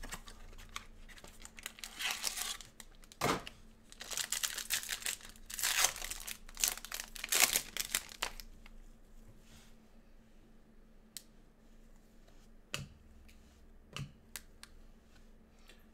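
Packaging of a 2020 Topps Museum Collection baseball box being torn and crinkled open in bursts for the first eight seconds or so, then quieter handling of the cards with a few light taps.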